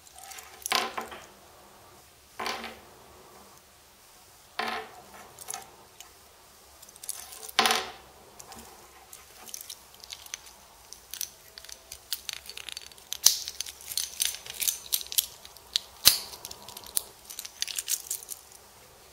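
Orient 2ER dive watch being handled: its metal link bracelet and clasp clink against each other and the case in four separate sharp clinks, then a busy run of small clicks and clinks near the end.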